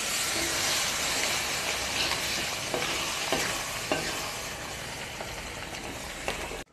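Chicken curry in a metal kadai sizzling and bubbling as water is stirred into the hot fried masala with a wooden spatula, with the spatula scraping and knocking against the pan a few times.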